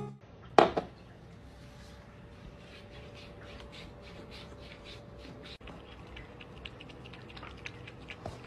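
Black cat lapping water from a drinking glass: a run of soft wet ticks, about three a second, quickening near the end. A single short, louder sound comes about half a second in.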